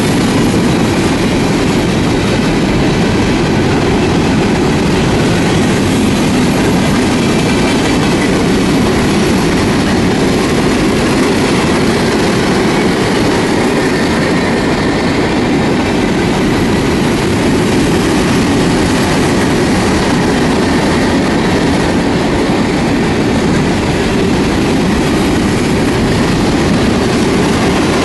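Norfolk Southern freight train of open-top hopper cars rolling past close by: a loud, steady noise of steel wheels running on the rails, with no horn.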